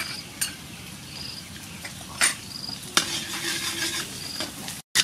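Metal spoon clinking and scraping as chopped garlic goes from a small bowl into a steel wok, then stirring it in hot oil, with a light sizzle from about three seconds in. Short high insect chirps repeat about once a second.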